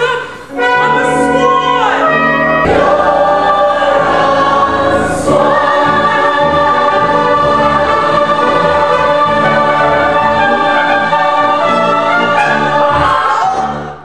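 A musical-theatre cast singing together in chorus on stage, sliding up through a few phrases and then holding one long final chord. The sound cuts off suddenly at the end.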